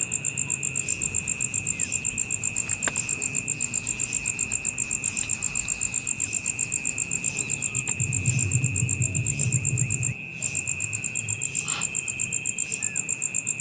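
Chorus of insects: a high, rapidly pulsing trill over a steady high buzz, both cutting out briefly about ten seconds in. A low rumble runs under it for a couple of seconds near the end.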